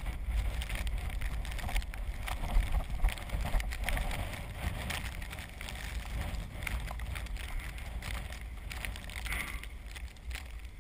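Azub recumbent trike rolling through snow and slush: tyres hissing with many small crunches and clicks, over a low wind rumble on the microphone.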